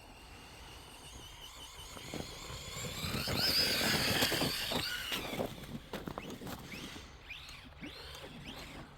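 Electric RC truck motor whining as the truck accelerates, its pitch rising and loudest about three to five seconds in. Near the end come several short rising whines from quick bursts of throttle.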